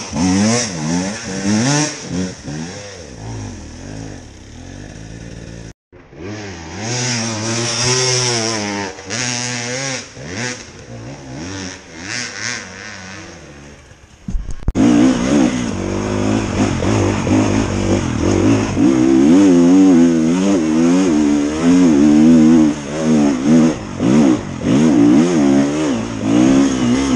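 Dirt bike engines revving up and down under constant throttle changes as the bikes climb a steep off-road slope. After about fifteen seconds the engine is closer and louder, heard from on the bike itself.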